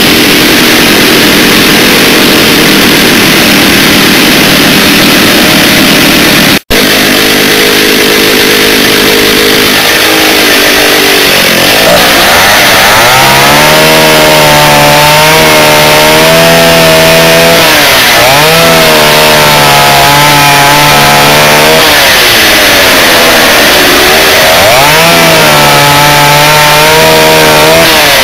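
Stihl 08 two-stroke chainsaw running at high revs, with a split-second gap about a third of the way in. From about halfway its pitch sags and recovers several times as the chain bites into wood under load; the chain is a little blunt.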